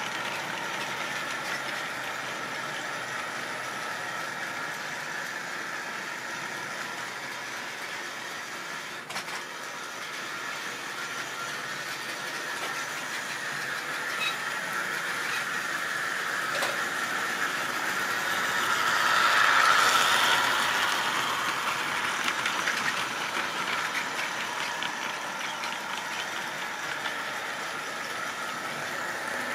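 Model railway trains running on the layout's track: a steady hum of small motors with wheels rattling over the rails, growing louder for a few seconds a little past the middle.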